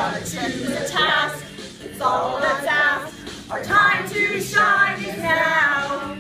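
Amateur voices singing a song parody over a recorded rock backing track.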